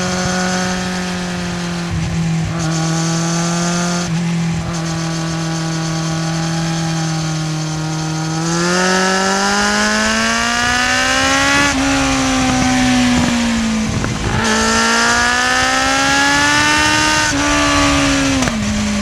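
Kawasaki Z750 inline-four engine running at a steady pitch, then revving up twice from about halfway, with a brief dip between the two climbs, and falling back near the end. A steady hiss runs above it.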